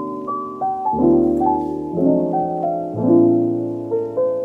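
Background piano music: a slow, soft piano piece with a new chord struck about every second under a simple melody.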